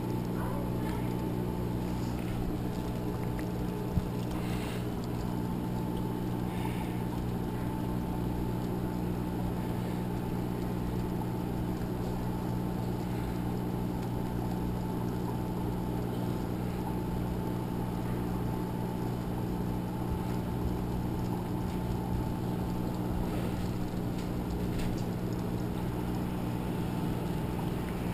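A small motor humming steadily, with one faint click about four seconds in.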